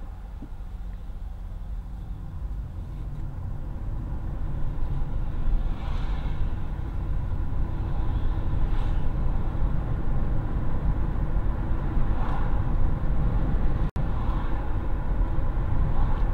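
Road and engine noise heard inside a moving car: a steady low rumble that grows louder as the car speeds up.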